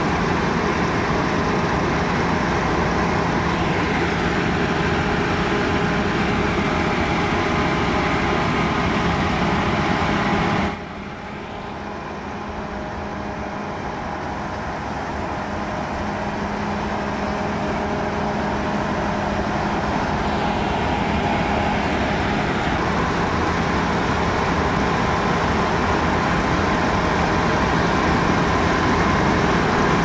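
CLAAS Lexion 780 combine harvester running steadily while cutting oilseed rape: a constant heavy machine drone with a few held tones. The sound drops suddenly about a third of the way in, then grows gradually louder again.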